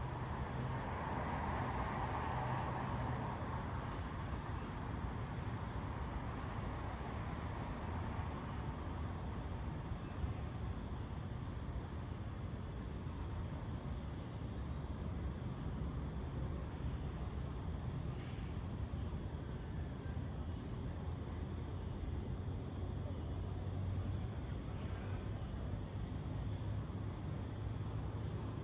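Insects trilling steadily in a high, finely pulsing tone, over a low, constant rumble. A soft swell of noise rises and fades in the first few seconds.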